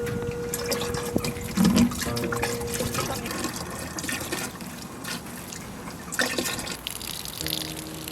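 Water splashing and trickling onto plants and soil as a garden is watered. A few long, held notes of a traditional Korean melody sound near the start, about two seconds in, and near the end.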